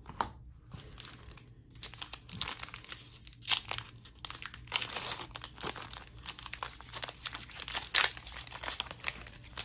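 Foil wrapper of a Panini Prizm Draft football card pack being torn open and peeled back by hand, with crinkling and tearing starting about two seconds in and continuing in irregular crackles.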